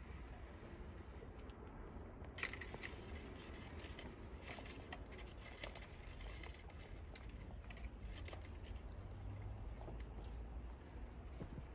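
Faint rustling and small scattered ticks from rabbits shifting about on the wire floor of a hutch, over a low steady rumble; the sharpest tick comes about two seconds in.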